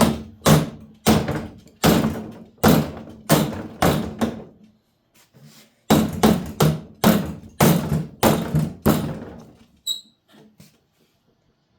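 Hammer blows on sheet metal, about one and a half to two a second, each ringing briefly, in two runs of about seven with a short pause between, then a few light ticks near the end.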